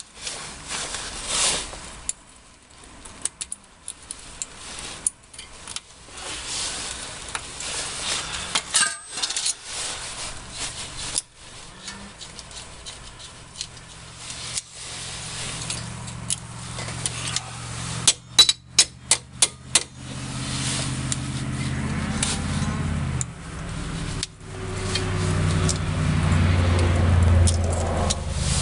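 Metal parts and hand tools clinking and clanking during reassembly of a Jeep Cherokee's front hub and brake, with a quick run of about eight clicks a little past halfway. A steady low engine-like drone comes in about halfway through and grows louder near the end.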